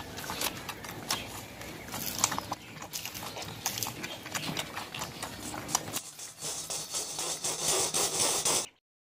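Puppies suckling and feeding: a dense run of irregular wet smacking and clicking sounds, which cuts off to silence shortly before the end.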